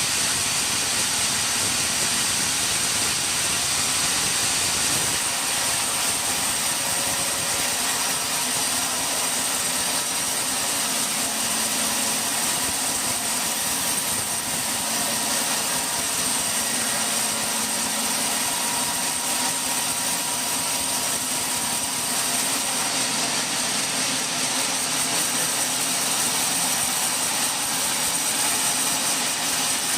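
Sawmill machinery running steadily, a constant mechanical noise with a thin high whine over it.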